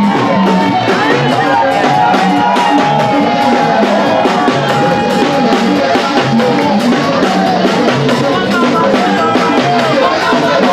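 Upbeat dance music with a steady drum beat and a long held high note, with a singing voice over it.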